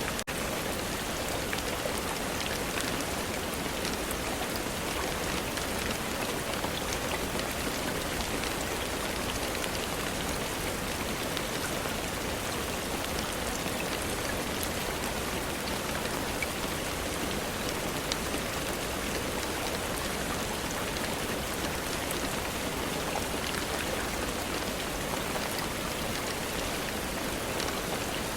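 Steady rain falling on a surface, a dense even patter with countless small individual drop ticks, holding the same level throughout.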